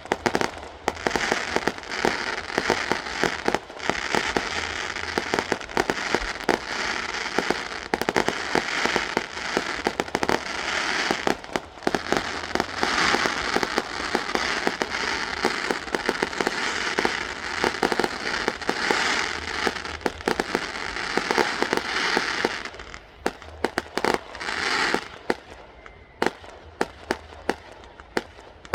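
Fireworks going off: a rapid run of bangs over a dense crackle that thins out to scattered single bangs for the last several seconds.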